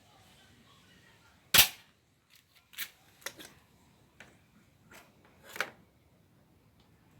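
One loud, sharp knock about a second and a half in, then a string of fainter clicks and taps over the next few seconds, as the washing machine's controls are handled to set it to spin.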